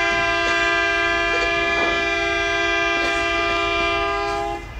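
Riverboat's horn sounding one long, steady blast of two close tones that cuts off near the end, signalling arrival in port.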